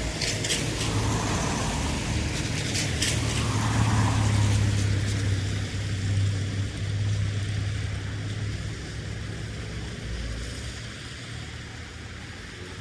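Street traffic ambience with a steady low vehicle engine rumble and short sharp sounds near the start and about three seconds in. It fades gradually over the second half.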